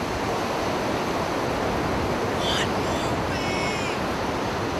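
Ocean surf breaking and washing onto the beach, a steady rush. About two and a half to four seconds in, a short high cry sounds over it.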